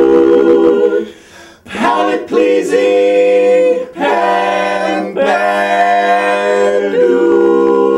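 Men's voices singing a cappella in harmony, holding long chords. The singing breaks off briefly about a second in, then resumes with a run of long held notes and settles into another sustained chord near the end.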